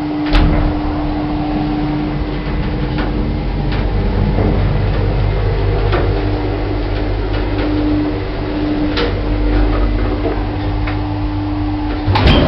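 Hammond & Champness lift running: a sharp click just after the start, then a steady motor hum over a deep rumble with scattered faint ticks. It grows louder near the end.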